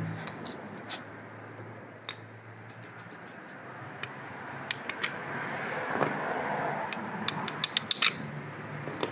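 Light metallic clinks and knocks as the crankshaft and connecting rods in an opened engine block are handled, most of them coming in a quick run from about halfway through, over a steady low hum.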